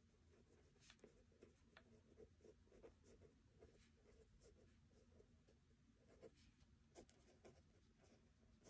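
Faint scratching of a pen writing on the page of a spiral-bound notebook: a steady run of short strokes with a few sharper ticks.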